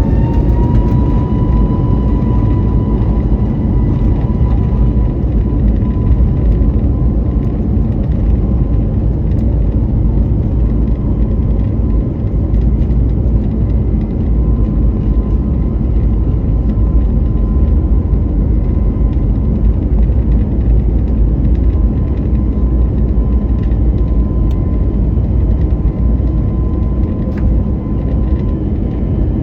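Airbus A321neo's Pratt & Whitney PW1100G geared turbofans spooling up to takeoff thrust, heard from inside the cabin: a whine rises in pitch over the first second, then holds steady over a loud, constant rumble through the takeoff roll.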